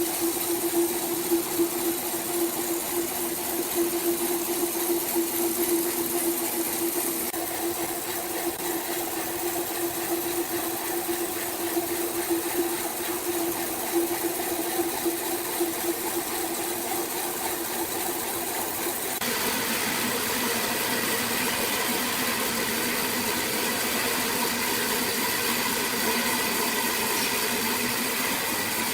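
Sawmill machinery running steadily with a steady hum. The sound changes abruptly about seven seconds in and again about nineteen seconds in.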